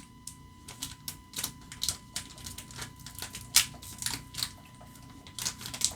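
Foil trading-card booster pack wrapper being pulled and torn open by hand: an irregular run of crinkles and clicks, with one sharper crackle about three and a half seconds in.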